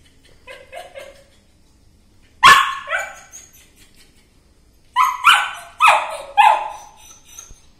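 Small white spitz-type dog barking: two sharp barks about two and a half seconds in, then a quick run of four barks from about five seconds in.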